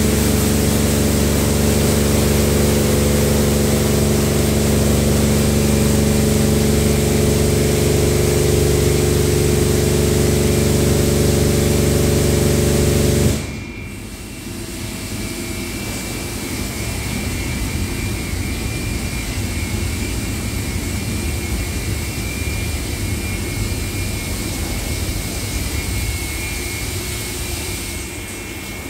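Tammermatic T700 Lux touchless rollover car wash at work: the high-pressure pump and spray jets run with a steady hum and hiss, then cut off abruptly about halfway through. After that a quieter hiss carries on with a thin steady high whine while the gantry travels along the car.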